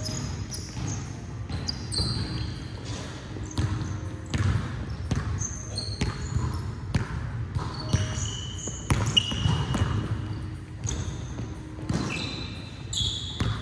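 Basketball bouncing on a hardwood gym floor, with many short high-pitched sneaker squeaks as players cut and stop, all ringing in a large hall.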